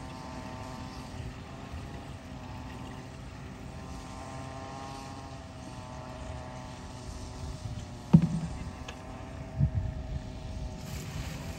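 A small engine drones steadily in the background with a slightly wavering pitch. About eight seconds in comes one sharp knock, followed by a few duller thumps, while spray chemical is being loaded into the drone's tank from plastic containers.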